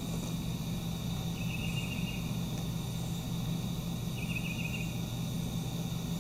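Outdoor summer ambience of insects such as crickets or cicadas buzzing steadily over a low steady hum, with two short raspy chirping bursts, one about a second and a half in and one about four seconds in.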